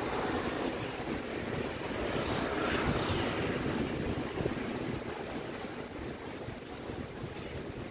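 Surf washing onto a sandy beach, a steady rush that swells about two to three seconds in, with wind buffeting the microphone.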